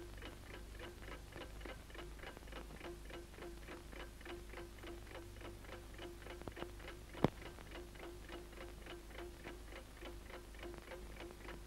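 A clock ticking quickly and evenly, about four ticks a second, over a faint steady hum, with one sharper click about seven seconds in.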